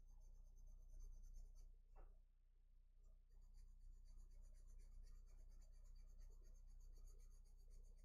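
Faint scratching of a colouring tool making light strokes on paper, with one soft tick about two seconds in.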